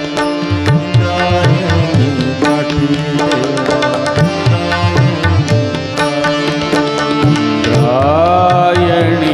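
Marathi devotional abhang music: a male voice holding long drawn-out notes over sustained drone and melody accompaniment, with a tabla keeping a steady rhythm. Near the end the voice swoops up in pitch and back down.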